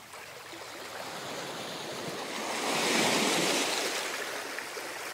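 Logo-intro sound effect: a rush of noise like a breaking ocean wave, swelling to a peak about three seconds in and then easing off.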